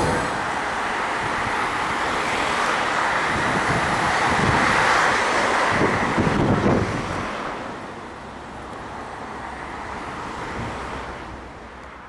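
Road traffic: a vehicle going past, its engine and tyre noise swelling about four to seven seconds in and then fading to a quieter hum.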